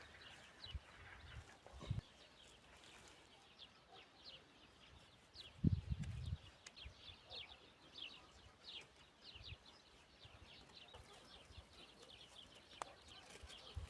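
Small birds chirping over and over in short, high calls that fall in pitch. A low thud and rumble comes about six seconds in.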